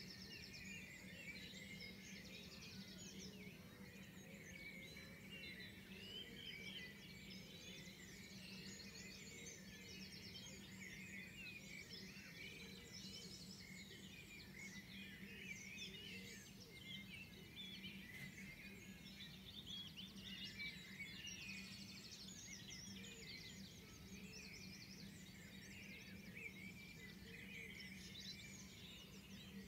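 Dawn chorus: many songbirds singing at once, their chirps, trills and warbles overlapping without a break, faint with distance. A steady low hum runs underneath.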